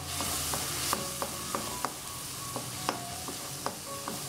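Diced capsicum and beans sizzling in oil in a non-stick wok over a high flame while a wooden spatula stirs them, knocking against the pan in irregular taps two or three times a second.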